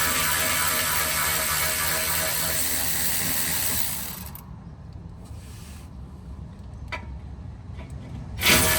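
Cordless ratchet on a 10mm socket running in bursts as it spins out the undercover bolts. It whirs steadily, winds down about four seconds in, gives a sharp click a few seconds later, then starts again near the end.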